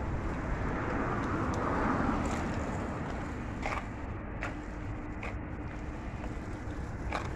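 A car passing on the road, its noise swelling about a second or two in and fading away, over a steady rumble of wind and handling on a phone microphone. A few light clicks come in the second half.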